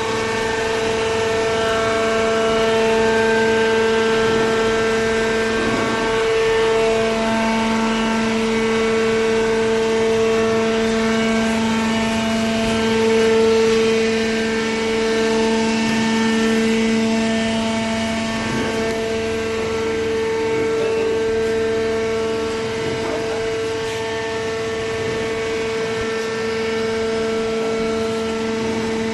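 Hydraulic baling press running: its electric motor and hydraulic pump give a loud, steady whine with a lower hum beneath, wavering slightly in level but otherwise unchanging.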